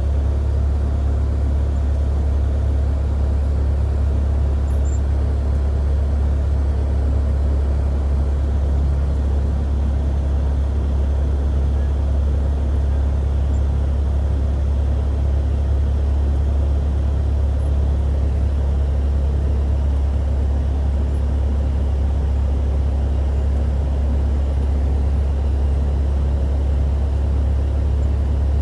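Cessna 172 Skyhawk's piston engine running at low power while taxiing, heard from inside the cabin as a steady, loud, low drone.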